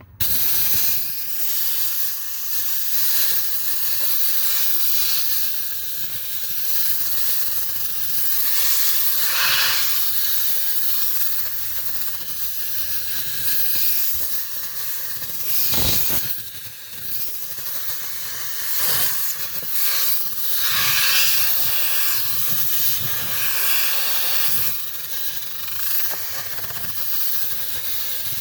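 Compressed air from a shop air line hissing continuously as it blows dust and debris out of the bottom of a truck's HVAC blower housing. The air comes on abruptly and swells and eases as the flow is worked around, with one brief sharp crack partway through.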